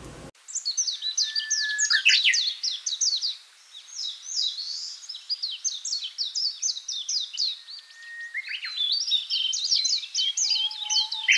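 Songbirds singing in fast runs of high chirps and trills, with a few longer whistled notes in between. The song starts just after the earlier background cuts off, and nothing else is heard beneath it.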